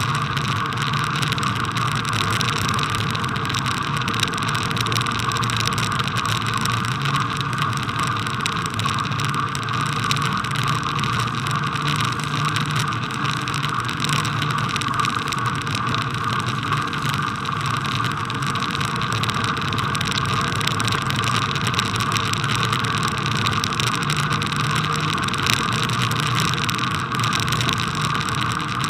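Steady bicycle riding noise on a packed-snow path, picked up by a camera fixed to the bike: an even rushing noise with no distinct events.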